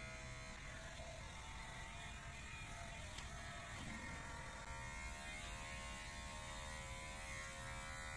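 Electric hair clippers running with a steady buzz while trimming the hair at the nape. The buzz turns rougher about half a second in and steadies again a little before five seconds in.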